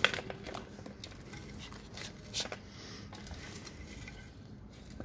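Hands scooping and pressing a soil-based potting mix into a cement flower pot: soft, uneven rustling and crunching of the soil, with a sharp knock at the very start and another small cluster of crackles about two and a half seconds in.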